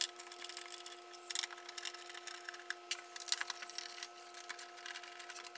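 Phillips screwdriver backing screws out of a 3D printer's bottom plate: irregular small clicks and scrapes of the bit turning in the screw heads.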